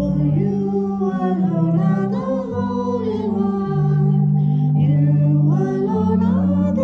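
Voices singing a hymn over an accompaniment of held low chords that change every second or two.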